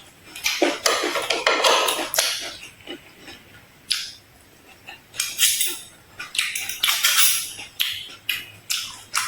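Close-miked chewing and crunching of food, in irregular bursts with short pauses, with a few utensil or dish clinks.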